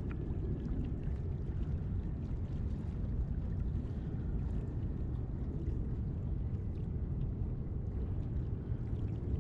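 Steady low rumble of wind buffeting an action camera's microphone, with a few faint small clicks.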